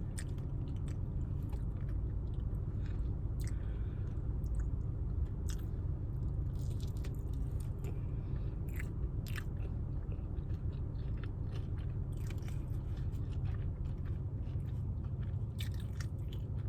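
A person chewing and biting food close to the microphone, with scattered short crunches and mouth clicks over a steady low hum.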